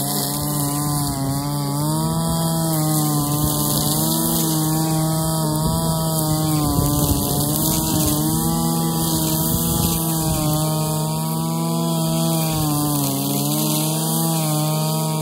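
Husqvarna 545RX brushcutter's two-stroke engine running near full throttle while cutting grass, its pitch dipping slightly and recovering every second or two as the cutting head sweeps through the grass.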